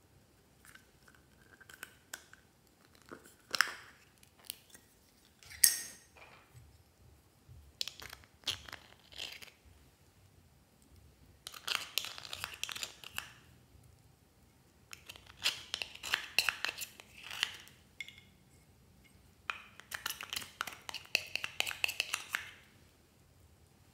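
Plastic eyeshadow compact clicking as it is handled, with one sharp snap as it opens. A metal pick then scrapes and chips the pressed pink eyeshadow out of the case in three bursts of rapid, crunchy scratching.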